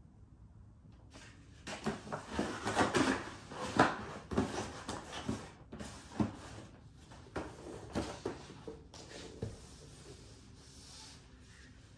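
Cardboard packaging being handled: the packing inserts scrape, rub and knock against the box in irregular strokes, loudest a few seconds in, then softer rubbing near the end.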